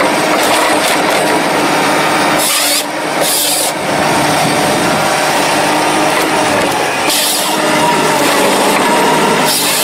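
Forestry harvester head working a birch log: the machine's engine and hydraulics running with a dense mechanical rasp of the head's saw and feed rollers. Short bursts of high hiss break in about four times.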